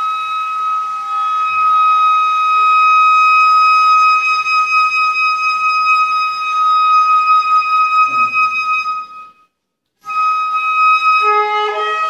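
Music: one high instrumental note, held steady for about nine seconds, breaks off for a moment, then returns and moves into a few changing notes near the end.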